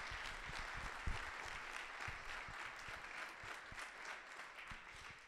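Small audience applauding, a dense patter of clapping that dies away near the end.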